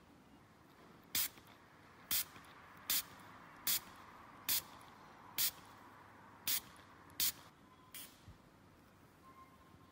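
Lipstick-style pepper spray fired by pressing its nozzle again and again: nine short puffs of spray, about one a second.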